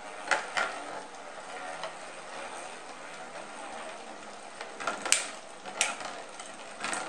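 Two mini battle spinning tops spinning on a plastic battle stadium, giving a steady light whirring rattle. Sharp clacks of impact come twice early on and twice more about five to six seconds in.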